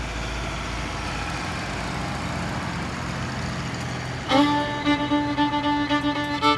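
Background music: a soft passage, then about four seconds in a fiddle comes in loudly with a new tune.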